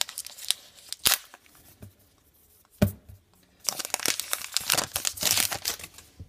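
A baseball card pack's wrapper being torn open and crinkled. There are scattered crackles at first, a sharp snap about three seconds in, and then a couple of seconds of dense tearing and crinkling.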